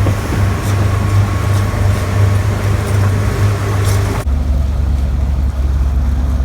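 Motorboat engine running steadily with a strong low hum; about four seconds in the sound changes abruptly to a lower, steady hum.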